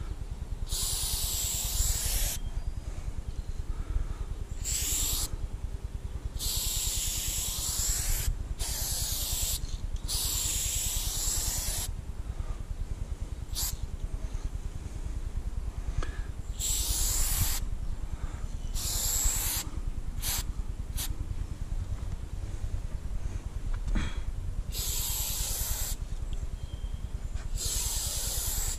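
Aerosol spray paint can spraying in repeated bursts of hiss, some brief, some held for about a second or two, with gaps between, over a steady low rumble.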